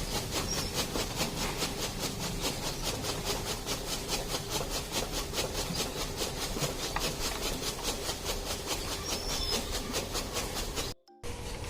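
Buffalo being milked by hand: milk squirting in short hissing jets at an even rhythm, about four squirts a second. The sound drops out for a moment near the end.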